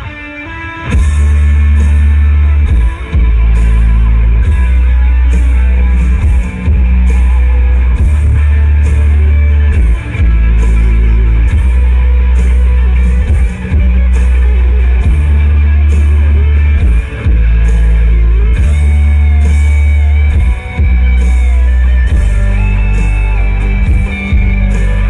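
Instrumental break of a Thai rock song, with electric guitar over a heavy bass line and a steady drum beat, played loud through an outdoor-cinema loudspeaker system during a sound test. The music dips briefly right at the start.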